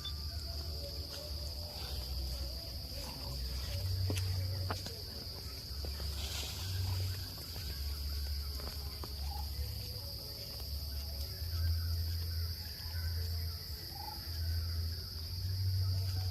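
Outdoor ambience: a steady high-pitched insect drone, with low rumbling on the microphone that comes and goes and scattered faint clicks.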